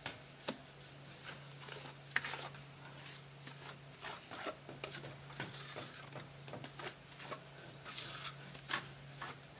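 Steel masonry trowel scraping fibre-reinforced render mortar off a steel float and pressing and smearing it onto a block-wall jamb: irregular scrapes and light taps of metal on mortar, a few sharper clicks among them, over a steady low hum.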